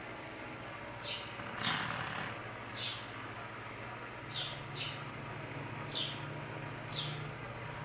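Snoring: a breathy rasp about two seconds in, then short, high, squeaky whistles, each falling in pitch, about once a second and sometimes in pairs, over a steady low hum.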